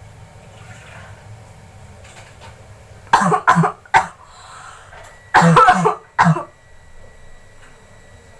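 A person coughing in two short fits: three coughs about three seconds in, then two more around five and a half to six seconds. The coughing is put on for a fake coughing-up-blood prank.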